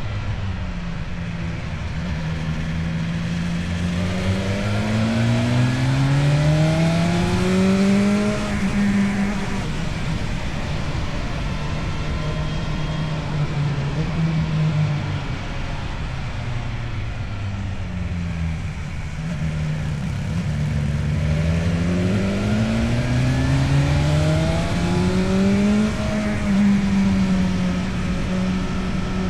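Motorcycle engine with an Akrapovic exhaust under way. It pulls up in revs, eases off, then pulls up again near the end.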